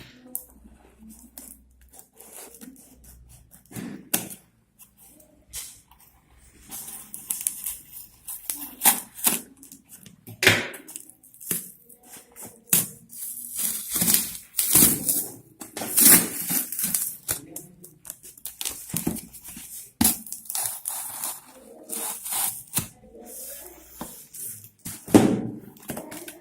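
A sealed cardboard box and its plastic packing being torn and pulled open by hand: irregular rustling, crackling and tearing with small knocks, sparse at first and busier from about seven seconds in.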